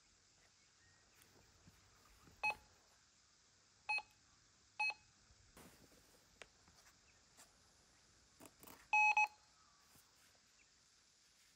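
Metal detector giving short target beeps as it passes over buried metal: three brief beeps in the first five seconds, then a louder, longer beep about nine seconds in.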